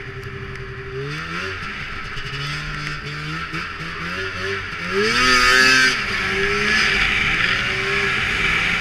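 Snowmobile engine running while side-hilling across a snow slope, its revs rising and falling with the throttle. There is a sharp rev-up about five seconds in, then a louder rush of noise for about a second.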